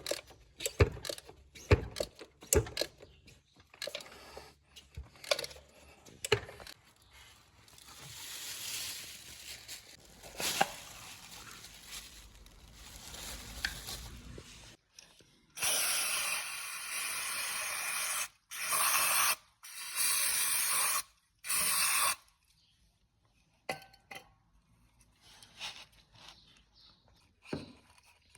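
Sharp clicks and knocks of hand tools, then a softer hiss. After that come four loud hissing spray bursts, the first lasting about two and a half seconds, with short gaps between them.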